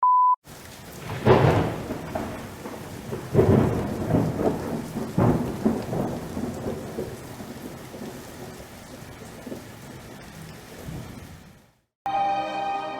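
A brief steady beep, then rain falling with several claps and rolls of thunder, the loudest about a second in, the storm slowly fading away. Music begins near the end.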